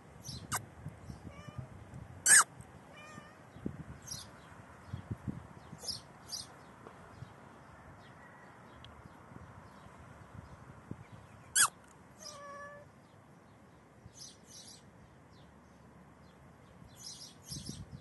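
A heavily pregnant Persian cat, hours before giving birth, meowing a few times in short calls. Two calls stand out, about two seconds in and again past the middle.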